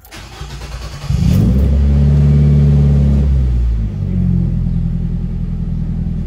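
Nissan March's 1.6-litre 16-valve four-cylinder engine being started: the starter cranks for about a second, the engine catches, flares up in revs, and settles to a steady idle about four seconds in. It is the first start with a newly fitted fuel pump, replacing a clogged one that made the engine misfire near 4,000 rpm.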